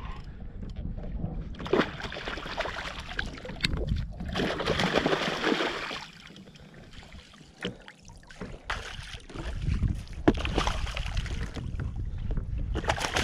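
A hooked snapper splashing and thrashing at the surface beside the kayak in two spells, the first starting about two seconds in and the second near the end, with a few sharp knocks. Low wind rumble on the microphone throughout.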